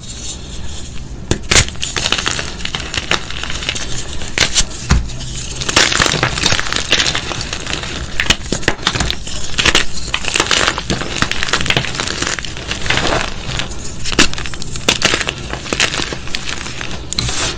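Crunchy blocks of gym chalk being crushed, a dense crackle of crumbling snaps with a few sharper cracks. The crunching is sparser at first and becomes thicker and more continuous after about five seconds.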